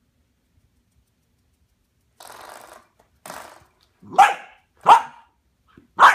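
A puppy barking three sharp, loud times about a second apart, after two softer, shorter noises.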